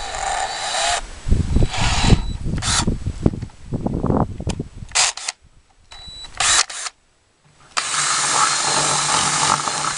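Wind buffeting the microphone over clicks of a bit being fitted into a cordless drill's chuck; about eight seconds in the cordless drill runs steadily, boring a 9/32-inch hole through the side of a plastic pickle bucket, and stops sharply.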